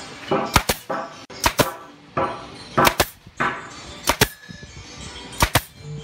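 Pneumatic nail gun driving nails into wooden cabinet trim: five sharp shots, each a quick double crack, at irregular intervals of about a second, over background music.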